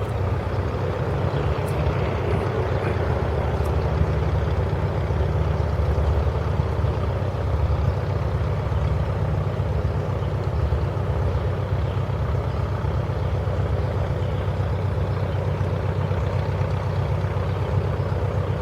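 A steady low rumble with a fast, even pulse, unchanging throughout, with a few faint light clicks in the first few seconds.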